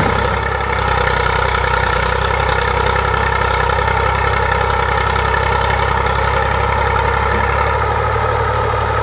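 IMT 542 tractor's three-cylinder diesel engine idling steadily.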